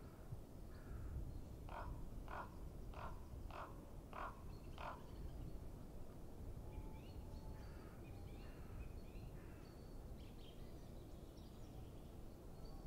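A crow cawing six times in an even series, about two-thirds of a second apart, followed by fainter high chirps of small birds, over a low steady rumble.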